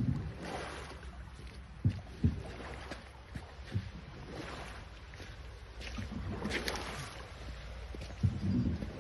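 A small boat being pushed along with a single long oar: water swishes around the blade and hull with each stroke, with a few short low thumps, over a low rumble of wind on the microphone.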